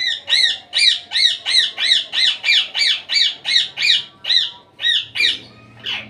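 Indian ringneck parrot giving a rapid series of loud, short squawks, about three a second, that stops shortly before the end.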